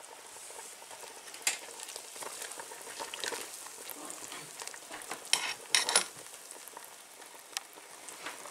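A large pot of beef broth simmering on the hob, giving a steady bubbling hiss. A few sharp clicks and knocks come through it, one about a second and a half in and a quick cluster around five to six seconds in.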